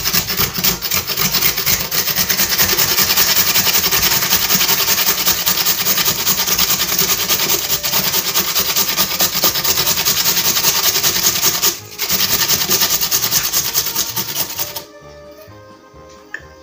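Carrot being grated on a flat stainless-steel hand grater: fast, continuous rasping strokes with a short break about three-quarters of the way through, stopping about a second before the end. Soft background music underneath.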